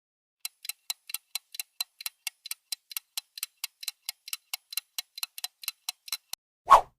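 Clock-ticking countdown timer sound effect: quick, even ticks, about four and a half a second, for about six seconds, ending in one short, louder sound near the end.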